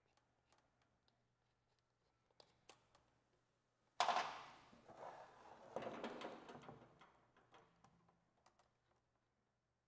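Light clicks of hand work at a radiator hose, then, about four seconds in, a sudden knock followed by a few seconds of scraping and shuffling as a plastic drain pan is handled and set under the motorcycle.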